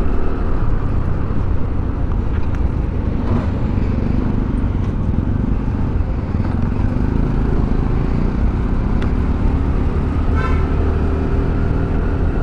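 Steady riding noise from a TVS scooter on the move: wind rumble on the microphone with the engine and road noise of traffic. A brief higher tone, like a distant horn, sounds about ten seconds in.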